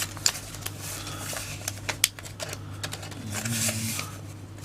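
Yu-Gi-Oh trading cards and their packaging being handled: a run of light clicks and taps, with a rustle about three seconds in, over a low steady hum.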